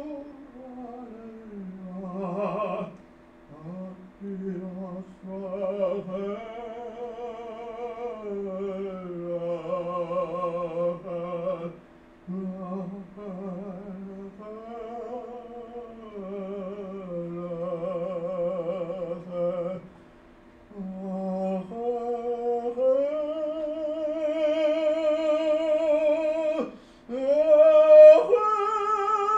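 A male voice singing slow, long-held operatic phrases with wide vibrato over a steady low drone, pausing briefly between phrases. In the later part the voice slides up to higher sustained notes, loudest near the end.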